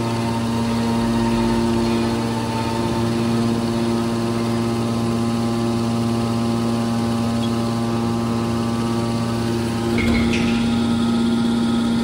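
Hydraulic power unit of a scrap metal baler running: the electric motor and hydraulic pump give a steady hum with a fixed tone. About ten seconds in there is a sharp click and the hum gets a little louder.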